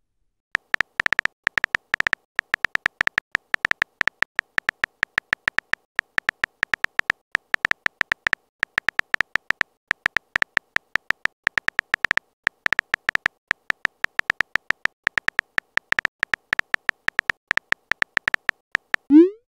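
Chat-app keyboard typing sound effect: a quick, irregular run of short, high blips, several a second with a few brief pauses, as a message is typed letter by letter.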